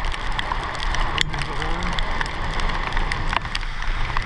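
Steady rain, with many small drops ticking on the camera housing over a rush of wind and wet-pavement noise while moving along.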